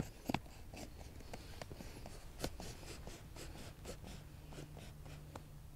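Faint scattered clicks and scrapes of an aluminum tube being handled and slid through the plastic brackets of an inflatable-raft motor mount.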